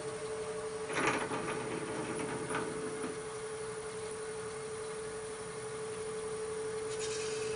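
Wood lathe running at slow speed, its motor making a steady whine, while a 3/8-inch drill bit in a tailstock Jacobs chuck is fed into the spinning knob, with a short burst of cutting noise about a second in.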